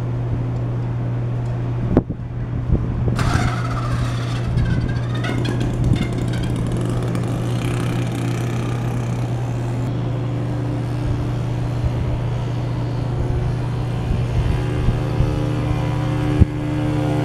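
Friction-drive bicycle motor running with a steady drone, revving up a little after three seconds in, with a sharp click about two seconds in.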